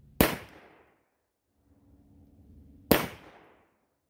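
Two shots from a Remington Elliot four-barrel ring-trigger derringer firing reloadable .32 rimfire short cartridges, about two and a half seconds apart. Each is a sharp crack that dies away within about half a second.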